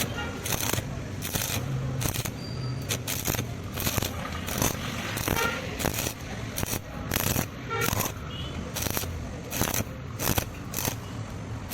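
Repeated sharp metallic strikes, irregular at roughly one to two a second, some leaving a short ringing tone, over a steady low hum.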